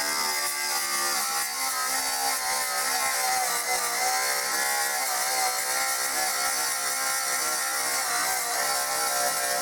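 Small rotary power tool with a grinding disc running steadily, grinding on steel: a continuous motor whine that wavers a little under load, over a hissing grind.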